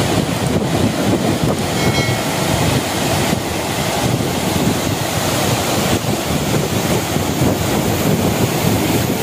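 A small twin waterfall, two streams pouring over rock ledges into a rock pool and spilling down a low cascade, makes a steady, loud rush of falling water.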